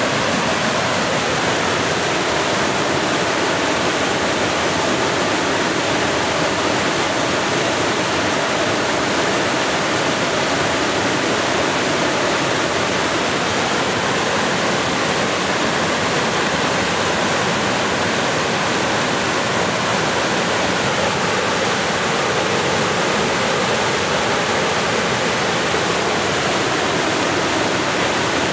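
Waterfall pouring over a rock ledge into a pool: a steady, loud rush of falling water.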